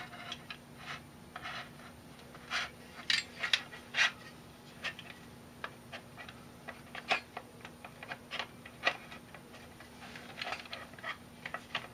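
Irregular light clicks and knocks of metal parts being handled and fitted together by hand: the aluminium extrusion column and slide pieces of a mini milling machine kit being assembled.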